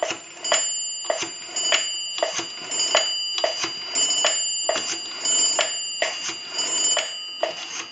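Rotary dial of a Northern Electric QSD-3A 3-slot payphone being wound and released for number after number. The dial's return pulses make a run of sharp clicks over a faint steady high-pitched whine.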